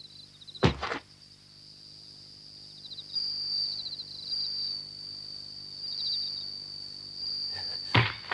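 Crickets chirping in steady high trills. A soccer ball thuds about a second in, and a ball is kicked near the end.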